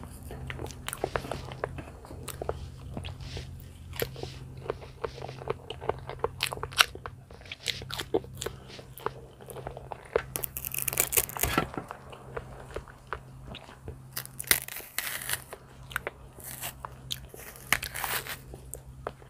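Close-miked chewing of soft banana, with many small wet mouth clicks and smacks. About ten seconds in, and again a few seconds later, louder tearing as a banana is broken off the bunch and its peel is pulled back.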